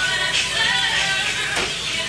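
Background music with a melody of held, overlapping notes. A brief sweeping noise passes through it about one and a half seconds in.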